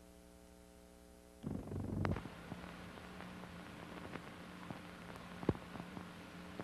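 Playback noise from an old analog recording: a steady electrical hum, then a burst of crackling about a second and a half in. After that comes a steady hiss with a low hum and scattered clicks and pops.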